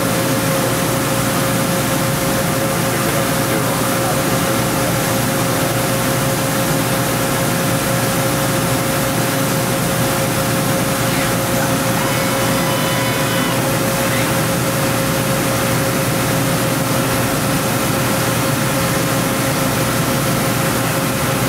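OKK VP600 five-axis vertical machining center running, its spindle head and trunnion table moving: a steady machine hum with one constant tone over a hiss, and a brief higher whine about twelve seconds in.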